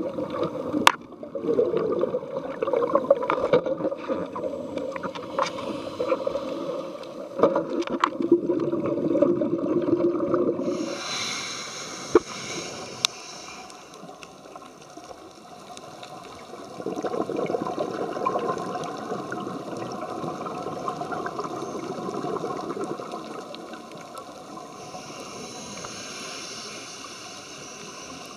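Underwater sound through a dive camera's housing: a scuba diver's exhaled bubbles gurgling in bursts. A steady low hum sits under the first part and stops abruptly about eleven seconds in, where the sound changes.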